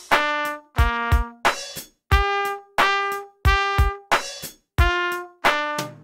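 Trumpet playing a simple beginner exercise: a row of short, separate notes, about three every two seconds, each one ending before the next begins. Underneath is a play-along backing track with a drum beat.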